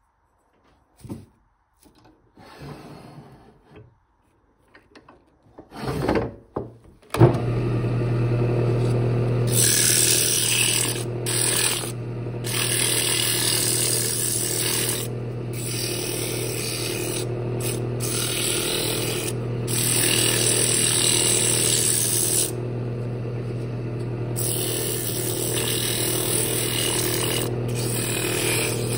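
A few light handling sounds, then about seven seconds in a wood lathe starts and runs with a steady hum. From about nine seconds in, an abrasive pad pressed against the spinning wooden lid hisses, broken by several short gaps where the pad is lifted off.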